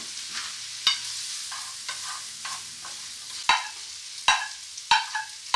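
Noodles and vegetables sizzling in a frying pan as they are stir-fried. Sharp knocks against the pan come five times, four of them in the second half.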